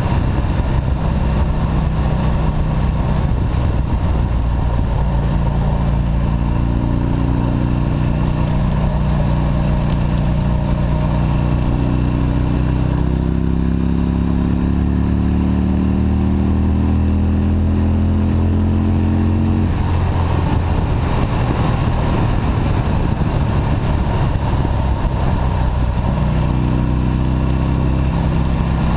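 Motorcycle engine pulling along at road speed under steady wind rush on the microphone. Its note climbs slowly, steps down once about 13 seconds in as a gear changes, and falls away around 20 seconds before picking up again near the end.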